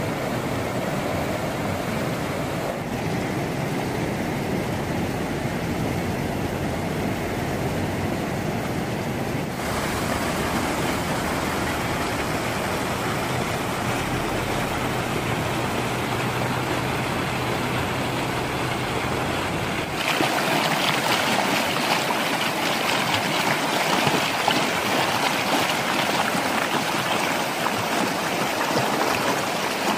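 Muddy flash-flood water rushing over rocks in a wadi, a steady loud rush. Its sound changes abruptly about ten seconds in and again about twenty seconds in, becoming louder and hissier for the last third.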